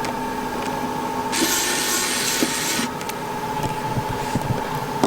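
A small tool scraping and rubbing against a phone's internal parts during disassembly: one hissing scrape about a second and a half long, starting about a second in, with light clicks and taps around it.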